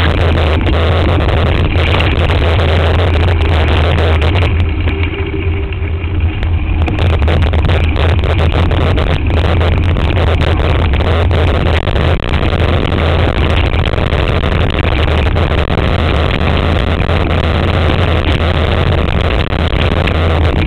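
Mountain bike ridden over a rough dirt trail, heard through a camera mounted on the bike: steady wind buffeting and a low rumble, with frequent rattles and knocks from the bumpy ground. The noise eases briefly about five seconds in.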